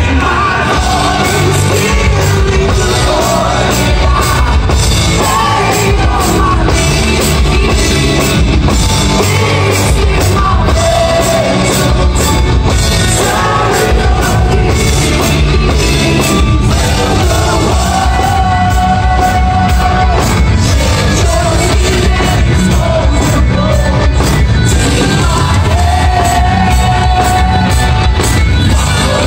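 Progressive rock band playing live and loud: distorted electric guitars, bass and drums with sung vocals, in a large hall.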